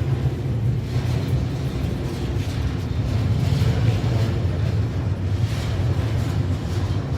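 A machine running with a steady low rumble.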